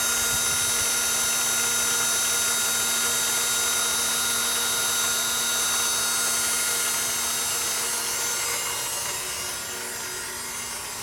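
Steady electric whirring whine in a 1997 Acura CL's engine bay while the ignition is on and the engine is not running. The owner takes it for the starter motor turning on its own, though the engine is not being cranked. The whine eases off a little after about eight seconds.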